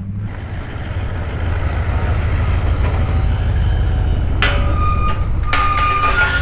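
A motor vehicle running, growing louder over the first second or two and then holding steady. Thin high tones come in about four and a half seconds in and again near the end.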